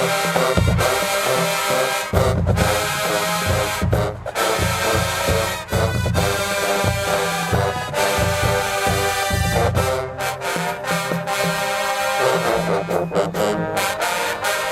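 HBCU marching band playing: brass chords over heavy drum beats, with a few sharp stops.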